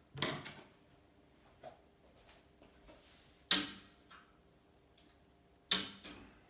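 Three sharp knocks and clacks of hard objects being handled and set down on a workbench, each ringing briefly, with faint ticks of handling between them.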